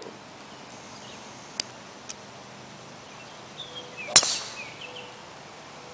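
A golf driver striking a ball off the tee: one sharp, loud crack about four seconds in. Two fainter clicks come a couple of seconds before it.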